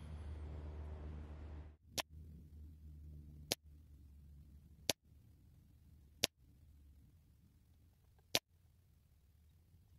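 Five shots from a .22 Rexam X Tormenta PCP air rifle fitted with an air stripper: five sharp cracks, one to two seconds apart.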